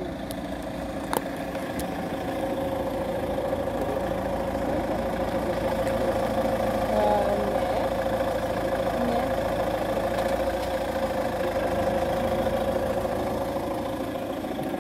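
A car engine idling, a steady hum that grows a little louder through the middle, with one sharp click about a second in.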